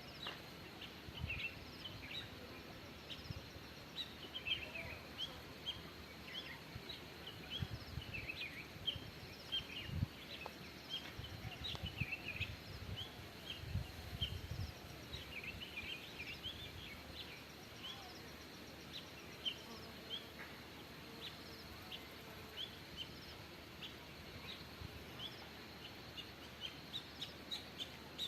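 Small birds chirping: many short, quick chirps, some overlapping, over a faint steady background hiss. A few low thumps come in, the strongest about ten seconds in and again around twelve to fourteen seconds.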